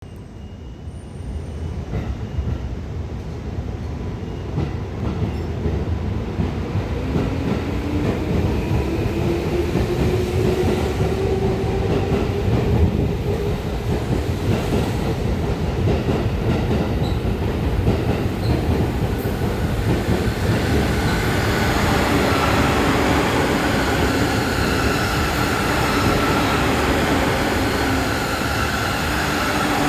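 JR East E231 series electric commuter train running through a station without stopping. The rumble of its wheels on the rails builds over the first ten seconds and then stays loud, with a tone rising in pitch about a third of the way in.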